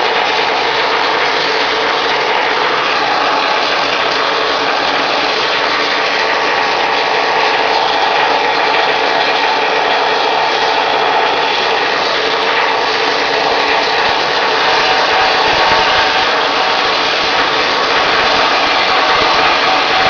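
Pneumatic needle gun (needle scaler) running steadily without a break, its needles hammering defective paint off steel.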